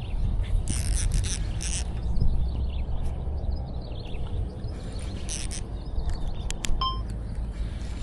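Strong wind buffeting the microphone, a steady low rumble, with repeated short bursts of high hiss and a brief high tone about seven seconds in.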